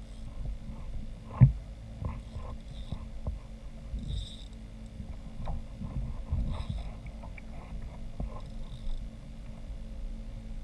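Irregular knocks and bumps against a kayak hull over a low rumble, the loudest a single sharp thump about a second and a half in.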